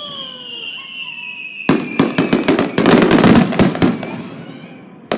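Fireworks: a high whistle glides slowly downward, then about two seconds in a loud burst of rapid crackling pops sets in and fades over the next two seconds or so.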